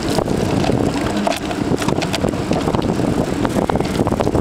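Soap box derby car rolling downhill on rough concrete: a steady rolling rumble from its wheels, with many small knocks and rattles as it runs over cracks and bumps.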